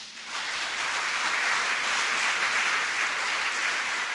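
Audience applauding. It starts abruptly, fills out within half a second and holds steady.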